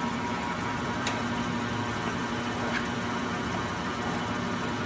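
Blanchard 18-36 vertical spindle rotary surface grinder running with its incremental power downfeed engaged: a steady machine hum from the 25-hp spindle motor and rotating table, with two faint ticks about a second in and near three seconds in.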